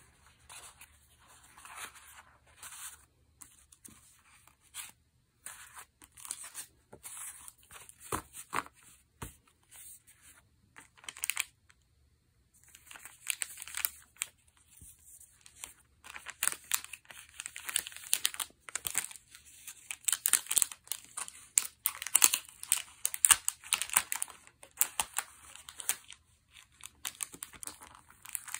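Paper craft pieces and clear cellophane packets being handled: irregular rustling and crinkling with small clicks, sparse at first with a short lull about twelve seconds in, then busier and louder in the second half.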